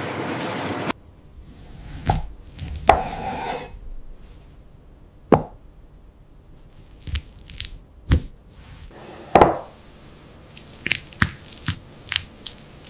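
A loud steady rushing noise cuts off abruptly about a second in. It is followed by a scattering of sharp, irregularly spaced knocks and lighter taps, with a quicker run of small taps near the end.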